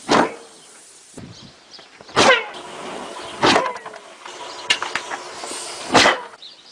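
A dog barking: four single sharp barks, a second or two apart.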